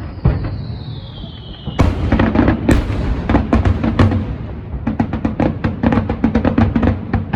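Fireworks: a high whistle falling slowly in pitch, then a burst of sharp bangs about two seconds in. Rapid crackling follows over a low rumble.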